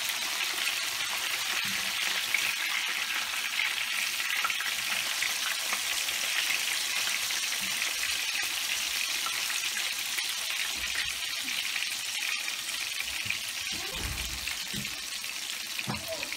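Breaded fish fillets frying in hot oil in a skillet, a steady crackling sizzle throughout.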